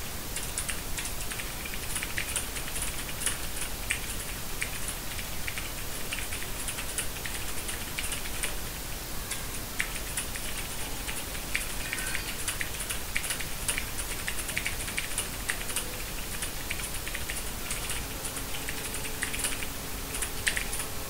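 Fast typing on a Logitech G413 mechanical keyboard with Romer-G switches: a rapid, uneven run of key clicks over a steady hiss.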